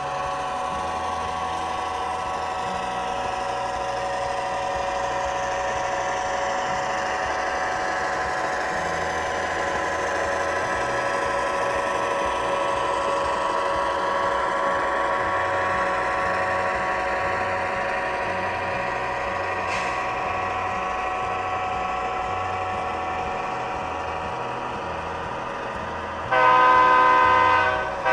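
Model diesel locomotive sound from a Tsunami2 sound decoder, played through a small onboard speaker: the F3's engine sound runs steadily. About 26 seconds in, a loud multi-tone horn blast sounds.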